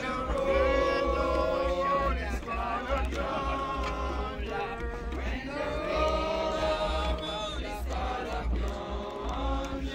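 A group of people singing a hymn together in long, held notes, with a steady low rumble underneath.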